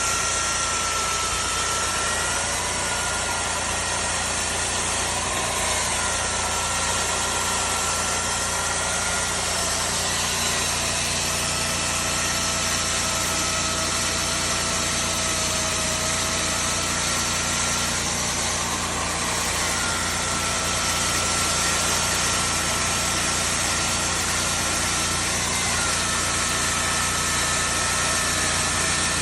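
Dr. Schulze DDM350T rig-mounted core drill motor running steadily, its whine dipping and shifting slightly in pitch every few seconds.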